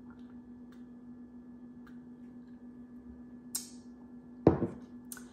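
Quiet room tone with a steady low hum and a few faint ticks, a short hiss about three and a half seconds in, and one dull knock about four and a half seconds in, the loudest sound.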